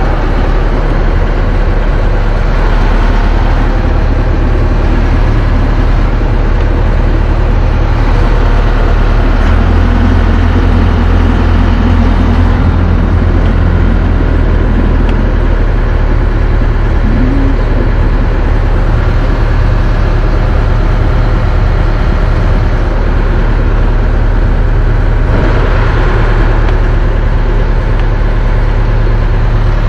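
Towboat's engine running steadily at low speed while towing, a loud, unbroken drone.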